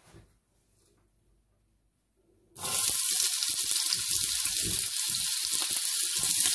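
Chopped onions dropped into hot olive oil in a pan, setting off a sudden loud sizzle about two and a half seconds in that then keeps frying steadily.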